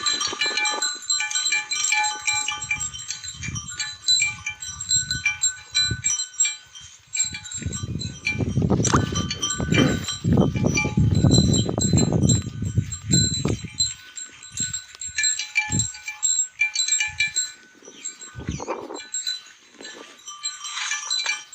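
Domestic water buffalo calling in low, drawn-out bellows, the longest and loudest from about eight to fourteen seconds in, with steady bell-like tinkling throughout.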